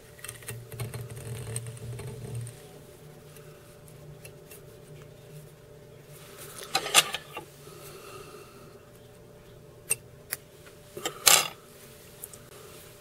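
Small-tool handling at a fly-tying vise: a few sharp clicks, the loudest about seven and eleven seconds in, with a low hum in the first two seconds.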